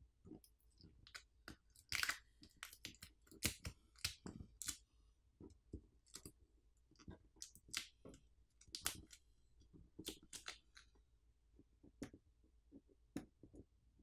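Small hand tools and phone parts handled during smartphone disassembly: irregular light clicks and taps with short crinkly scrapes, as the Xiaomi Poco F6's battery is pried off with its pull pouch.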